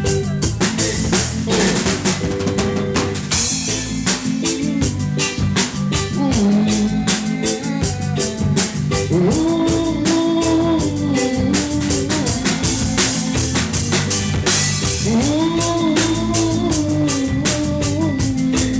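Reggae music with a drum kit playing snare and rimshot hits over a bass line. A held melodic line, which could be an instrument or a voice, swells in and out during a passage without sung words.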